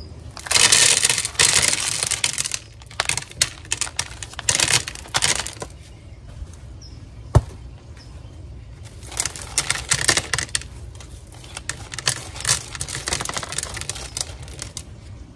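Small rocks taken out of the top of a cactus pot by hand and dropped onto a tray, clattering and clicking in bursts. There is one sharp single click about seven seconds in.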